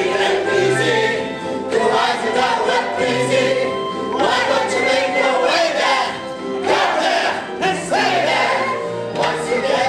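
Stage cast singing a music-hall song together over an instrumental accompaniment with a walking bass line.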